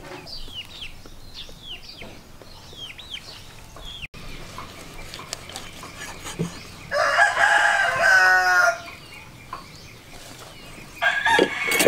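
A rooster crowing twice: one full crow of about two seconds starting about seven seconds in, and a second starting near the end. Faint short falling chirps sound in the first four seconds.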